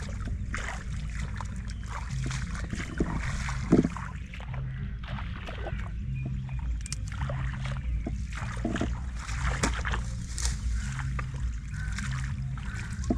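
Water splashing and sloshing in irregular bursts over a steady low rumble, with one sharper splash a little under four seconds in.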